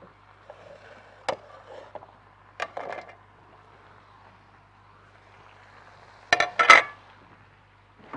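Dishes and kitchen utensils being handled on a countertop: a few scattered knocks and clinks, then a louder cluster of clattering knocks about six and a half seconds in.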